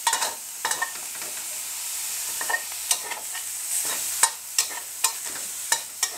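Minced pork and red curry paste sizzling in a metal wok while a metal spatula scrapes and clinks against the pan in irregular strokes as it is stir-fried. One sharp clank about four seconds in is the loudest.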